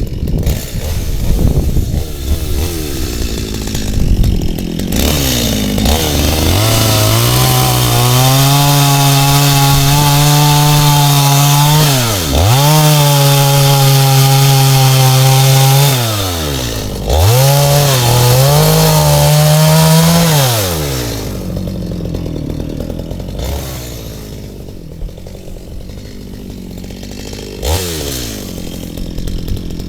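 Stihl two-stroke gas chainsaw revving up and held at high speed, as in a cut, with the engine note dipping sharply twice. After a quarter of a minute at speed it drops back to a low, rough idle with one short blip of the throttle near the end.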